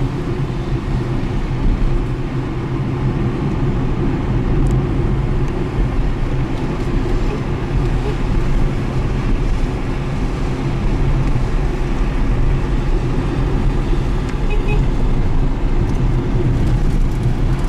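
Steady engine and road noise of a moving car, heard from inside the cabin with the driver's window open.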